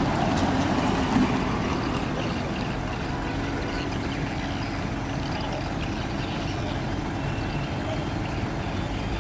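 Truck-mounted crane's diesel engine running steadily as it holds and lifts a heavy planter pot on the hydraulic boom, a little louder for the first couple of seconds and then even.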